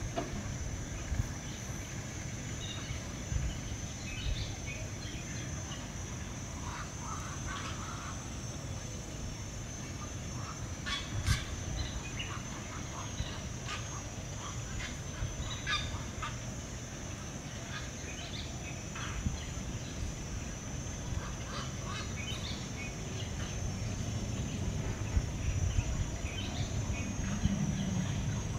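Birds calling, with many short scattered calls over a steady high-pitched drone and a constant low rumble.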